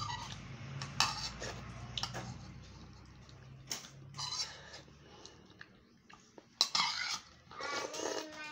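Metal spoon clinking and scraping against a bowl of dinuguan (pork blood stew) as it is scooped, several separate sharp clicks, with eating sounds between them.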